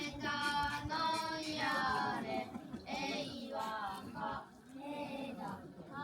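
Voices singing a traditional Japanese song, unaccompanied, in drawn-out wavering phrases about a second long with short breaks between them.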